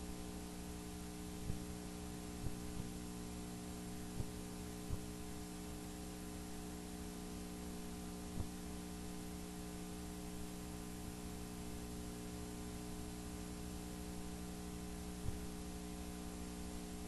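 Steady electrical mains hum with several evenly spaced tones, with a few faint clicks scattered through it.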